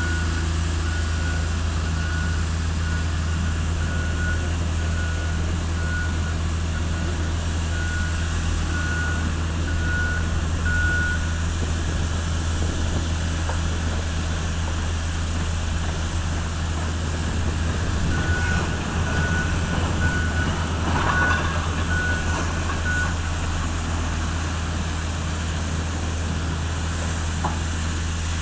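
A heavy machine's diesel engine running steadily while its backup alarm beeps at an even pace, about once a second, for roughly the first eleven seconds. The alarm beeps again for a few seconds about two-thirds of the way through, when the machine noise briefly grows.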